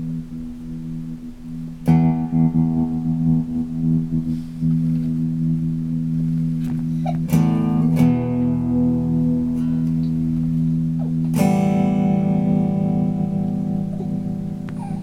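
Electric guitar played through a Montreal Assembly Rand() random-tremolo pedal. Notes and chords are struck about two, seven and eleven seconds in, and each rings on while its volume is chopped in an uneven, glitchy pattern.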